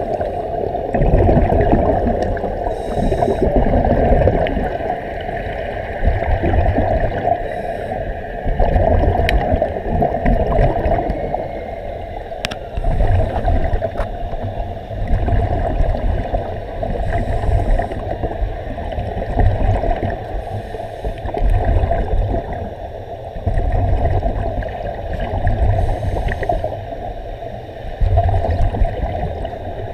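Muffled underwater water noise heard through a camera's waterproof housing, gurgling and sloshing. It swells and fades about every four seconds.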